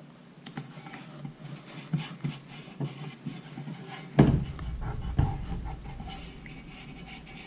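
Hands rubbing and pressing painter's tape down onto a hydrofoil plate on a workbench: irregular rustling, rubbing and light taps, with a heavier thump about four seconds in.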